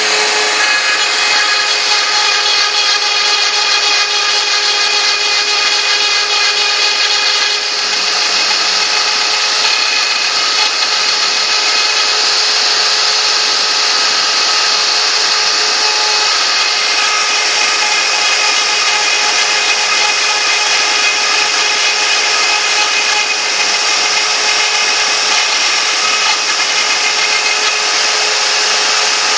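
CNC router spindle running steadily with a whine of several steady tones over cutting hiss as it mills Thai lettering.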